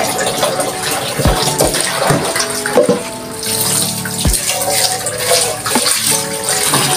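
Kitchen tap running into a metal cooking pot as it is rinsed in a stainless steel sink, with a few dull knocks as the pot is handled against the sink.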